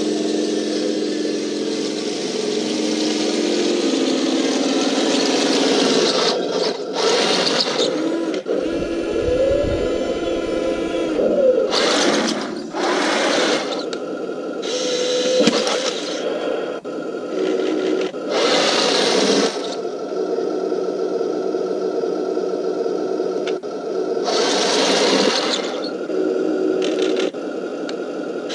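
Radio-controlled M41 Walker Bulldog model tank running on grass: a steady mechanical hum with whirring from its electric drive motors and gearboxes, rising in about six louder bursts as it drives and turns.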